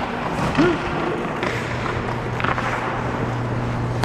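Hockey skates scraping and gliding on rink ice, with a few sharp taps of sticks or puck, echoing in an indoor arena. A brief shout comes about half a second in, and a low steady hum comes in about a second and a half in.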